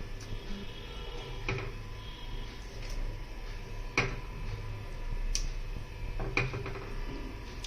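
A cooking utensil clinking against a pan four times, the second clink the loudest, over a low steady hum.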